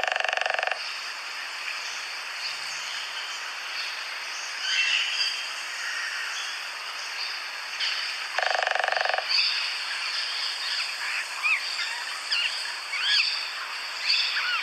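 Wild birds calling over a steady outdoor hiss: a harsh, buzzy call at the start and again about eight seconds later, a short chirp in between, and several quick whistled notes near the end.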